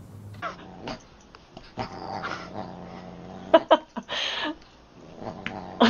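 A dog growling and yipping as it spars with a cat, with a few sharp, loud cries about three and a half seconds in.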